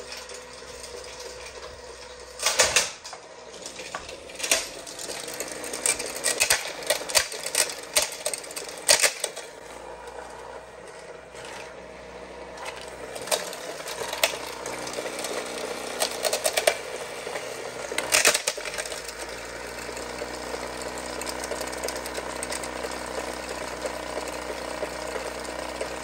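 Cheap robot vacuum running with a steady small-motor whine and its side brush spinning, broken by several loud knocks and clatters as it bumps about and is handled and picked up.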